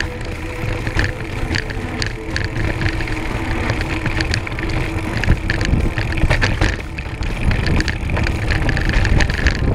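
Mountain bike riding down a rocky trail, heard from a handlebar-mounted camera: a steady low rumble of wind and vibration on the microphone, with the wide knobby tyre crunching over rock and gravel and many small rattles and knocks from the bike.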